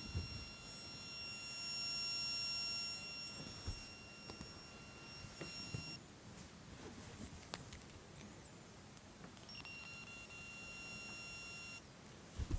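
An iPhone 6s gives off a strange steady electronic tone, several high pitches sounding together. It stops about six seconds in and comes back near ten seconds for about two seconds. The uploader tags it as a software bug in iOS 11.2.5.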